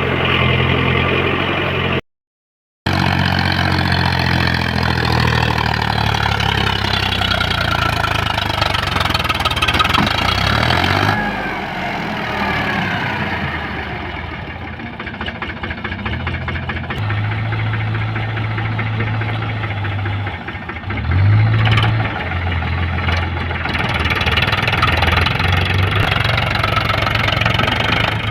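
Diesel engine of a JCB 3DX backhoe loader running under working load while loading mud, its note stepping up and down in pitch and loudness as the machine works. The sound cuts out completely for under a second about two seconds in.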